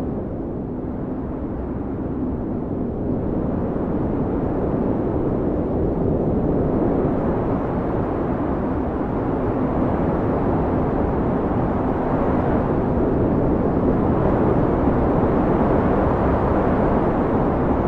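Blizzard wind blowing hard, a dense rushing noise with a faint low steady howl in it, swelling louder and brighter in the second half as a gust builds.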